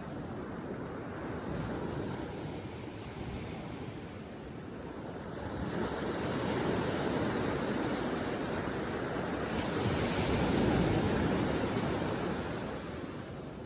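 Ocean surf washing onto a beach, a steady rush of water that swells about halfway through and eases off near the end.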